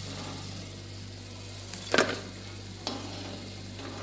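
Faint sizzle of lentil fritters frying in oil in a metal kadai over a steady low hum, with a sharp metallic knock about two seconds in and a lighter one shortly after as the slotted spoon strikes the pan.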